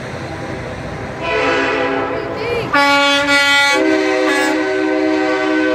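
Air horns on passing semi-truck haulers blowing long, loud chords, several horns overlapping. The loudest blast comes about three seconds in and lasts about a second, with horns still sounding after it.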